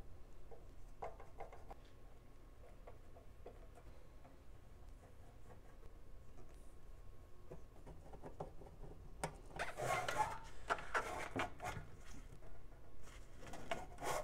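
Screws being backed out of an amplifier's sheet-metal cover with a screwdriver, heard as faint ticks and rubs. From about nine seconds in come louder, irregular scrapes and knocks as the metal case is handled and the cover is lifted off.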